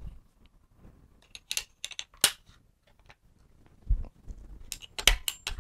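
Sharp clicks and snaps of the Silverback MDR-X rifle's ejection port cover being taken off and fitted on the other side, with a couple of dull handling knocks. The loudest cluster of clicks comes near the end.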